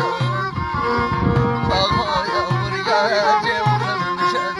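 Live Middle Atlas Amazigh folk music: a man singing an ornamented line over an upright-held violin and a plucked loutar, with a low note repeating about every second.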